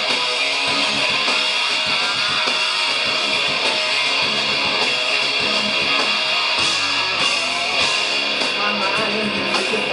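Rock band playing live, a guitar-led instrumental passage with strummed electric guitar.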